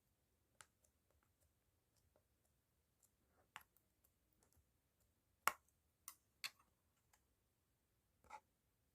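Near silence broken by a handful of faint, irregular clicks and taps, the sharpest about five and a half seconds in.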